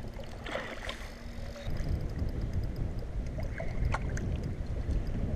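Wind buffeting the microphone and water lapping against a kayak on choppy water, growing louder about two seconds in, with a few light knocks and clicks from the angler working the rod and reel.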